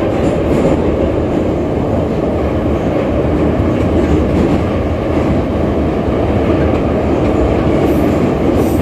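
Moscow metro Ezh3 train running, heard from inside the passenger car: a steady rumble of wheels on rail.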